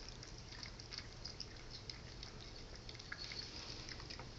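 Faint wet chewing and smacking of a cat and a baby opossum eating from bowls: scattered small clicks over a low, steady room hum.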